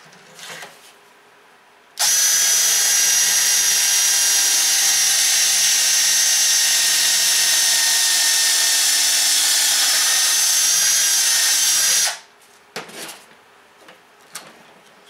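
Cordless drill running at steady speed for about ten seconds, boring a pocket hole through a pocket-hole jig into a wooden spacer; it starts and stops abruptly, and a few light knocks follow near the end.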